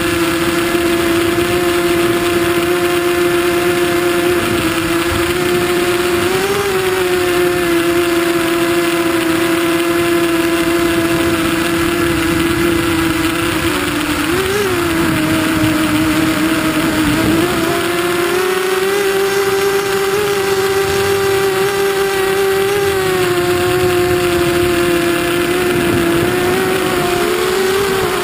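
Hexacopter's electric motors and propellers whining steadily as heard from the aircraft itself. The pitch wavers briefly a few times as it manoeuvres, then settles slightly higher for the latter part.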